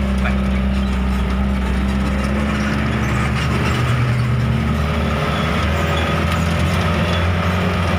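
Light truck's diesel engine running steadily under way, heard from inside the cab, its note changing about two and a half seconds in.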